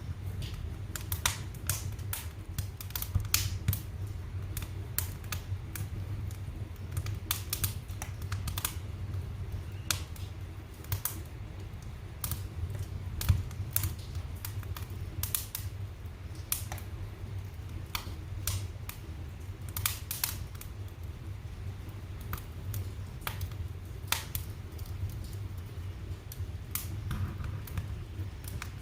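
Fire in a fireplace crackling, with sharp irregular pops over a low steady rumble of the flames.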